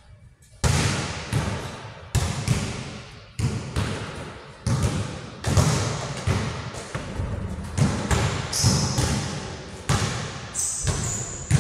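Basketballs bouncing on an indoor court floor: irregular sharp thuds about one to two a second, each trailing a long echo off the hall's hard walls and roof.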